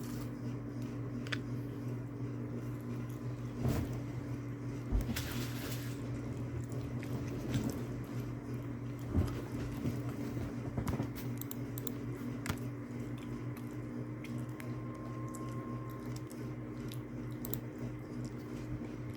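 A steady low hum with scattered small clicks, pops and rustles from handling.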